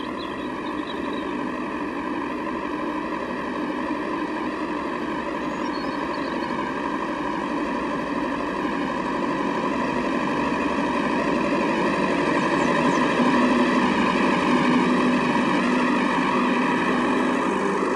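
Engines of several vintage tractors running as they drive up close one after another, the sound growing steadily louder as they approach.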